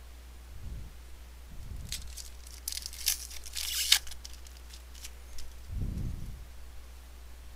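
Foil wrapper of a baseball card pack being torn open and crumpled: about two seconds of crackling tearing and crinkling, loudest at the end. A few soft low thumps come before and after it, over a steady low hum.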